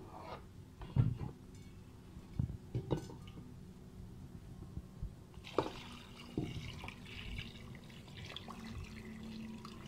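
A few light knocks, then from about halfway through water pouring in a steady stream into a cooking pot of raw beef and whole spices, filling it for yakhni stock.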